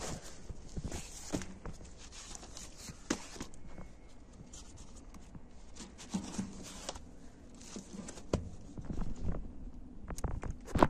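Cardboard LP record sleeves being flipped through and handled: irregular rustling and sliding of card against card, with soft knocks and a few sharper ones near the end.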